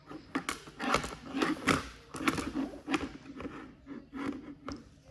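Irregular knocks, clicks and scrapes of a Supra robot vacuum being handled and turned over, fading out near the end.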